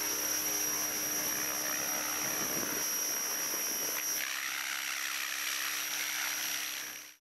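Radio-controlled model helicopter heard close up: a steady high whine over the steady hum of its spinning rotor. The sound shifts about four seconds in and stops abruptly near the end.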